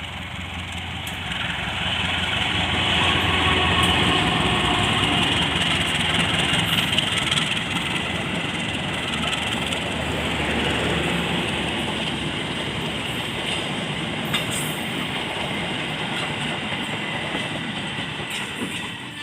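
A train running along the rails: a steady rush of wheel-on-rail noise that builds over the first few seconds, peaks, and then holds until it cuts off abruptly.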